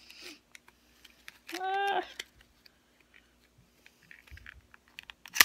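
Small plastic clicks and taps of a lipstick tube and its packaging being handled while she struggles to get it open. A short wordless vocal sound about one and a half seconds in, and a single sharp loud click at the end.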